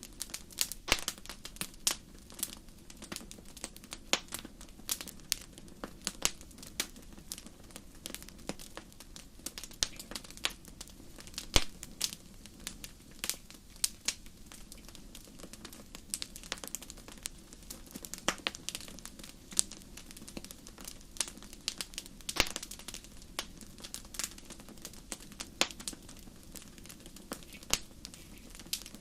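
Continuous irregular crackling: many small sharp clicks and ticks with an occasional louder pop, over a faint low hum.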